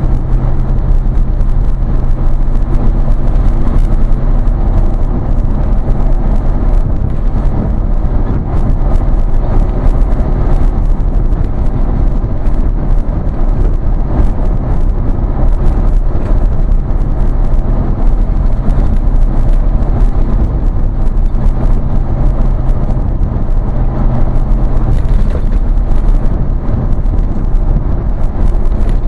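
Inside a vehicle's cabin while driving along a highway: a steady engine and exhaust drone over road and wind noise.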